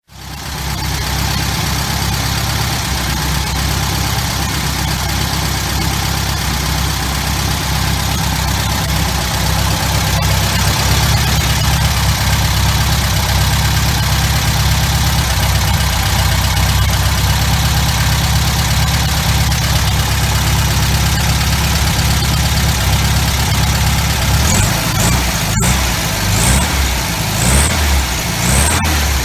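An old engine idling steadily. In the last few seconds its running becomes uneven.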